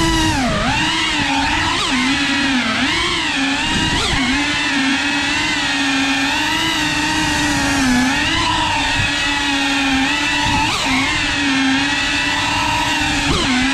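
A 3.5-inch cinewhoop FPV quadcopter's motors and propellers buzzing, the pitch wavering up and down with the throttle, with a few quick sharp dips in pitch as it manoeuvres.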